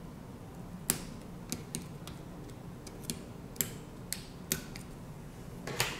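A handful of light, sharp clicks and taps at irregular intervals, as fingers unclip a flex-cable press-fit connector inside an opened Google Pixel 4 smartphone.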